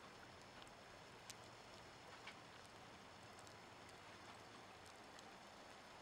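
Near silence: a faint steady hiss with a few faint ticks.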